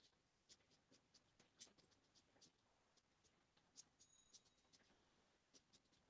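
Near silence: quiet room tone with faint, irregular small clicks and scratches, several a second.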